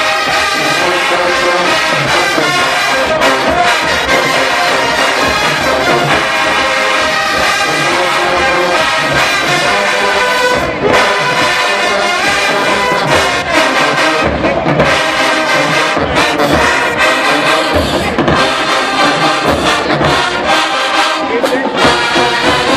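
HBCU marching band playing loud, with a full brass section of trombones and trumpets over a steady beat of drums.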